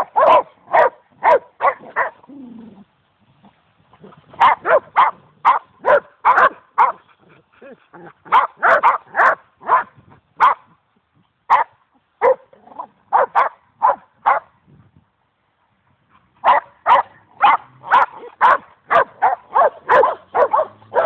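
Boxer dogs barking at each other in quick runs of several barks, about three a second, with pauses of one to two seconds between runs.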